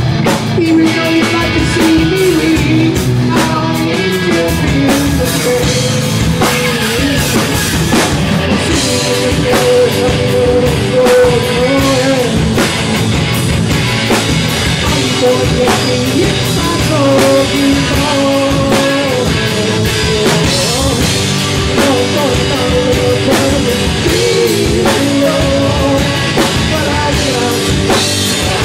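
Live rock band playing loud, with electric guitars, bass guitar and a drum kit, and a singer's voice over them.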